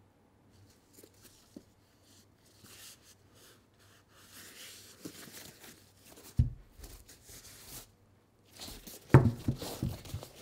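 Gloved hands handling leather sneakers: soft rustling and rubbing of the leather. There is a sharp thump about six seconds in and a cluster of louder knocks and rubs near the end.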